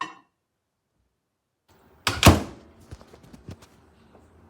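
Microwave oven door shut with a thunk about two seconds in, followed by several light clicks.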